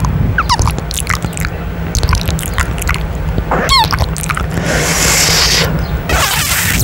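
Wet kissing and lip-smacking sounds made right on a microphone's mesh grille: a quick run of sharp little smacks, then a stretch of breathy hiss in the last two seconds, over a steady low rumble.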